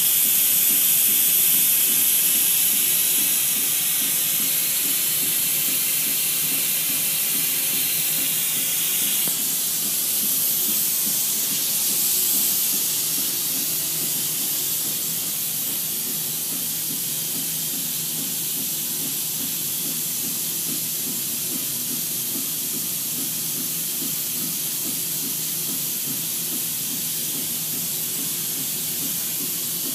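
Cold helium gas hissing out of a GE 1.5 T MRI magnet's frosted service turret as the magnet is ramped up, a steady hiss of helium boil-off with a low rapid pulsing underneath. The hiss gets a little softer and thinner about nine seconds in, then holds steady.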